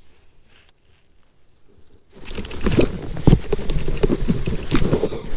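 Quiet for about two seconds, then a loud, busy run of splashing, knocks and rattling as a hooked smallmouth bass is fought at the kayak and brought in. The fish is foul-hooked in the tail on a spoon.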